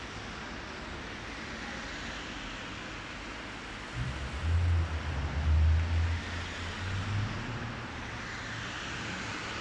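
Cars passing on a wet street, their tyres hissing on the wet asphalt, swelling and fading as each goes by. A deep, loud rumble runs through the middle few seconds.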